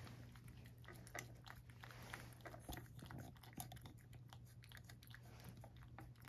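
Cat licking and lapping food from a ceramic saucer: faint, quick, irregular wet tongue clicks over a low steady hum.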